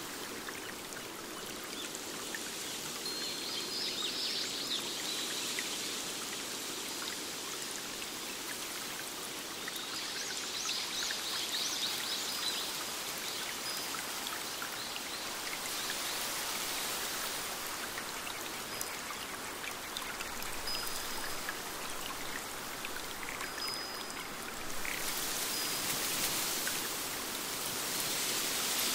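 Forest stream running over rocks: a steady rush of water that gets brighter and a little louder about 25 seconds in. A bird gives a short high trill twice, near 4 and 10 seconds, and a few thin single high notes follow.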